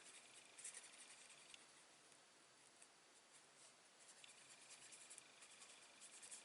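Near silence with faint scratchy rustles and light ticks of paper and card being handled, in short clusters about a second in and again near the end.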